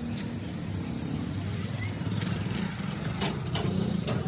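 A steady low engine rumble, with a few sharp clicks in the second half.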